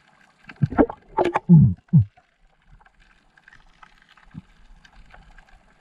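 Underwater gurgling: a short cluster of loud gurgles falling in pitch about half a second to two seconds in, and one more near the four-second mark, over a faint crackling hiss.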